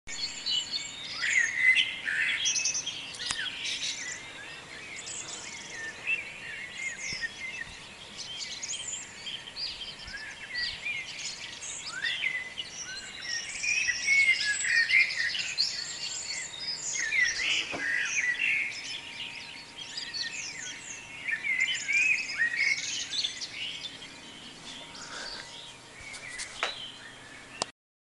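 Dawn chorus: many birds singing at once, a dense overlapping tangle of chirps, trills and short song phrases. The sound cuts off suddenly near the end.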